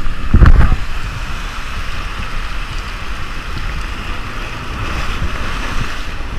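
Ocean surf breaking and washing over rocks, a steady hiss, with wind rumbling on the microphone and one loud low buffet about half a second in.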